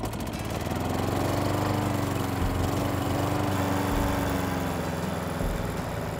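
Petrol string trimmer running and cutting grass, its small engine note rising a little and then easing back.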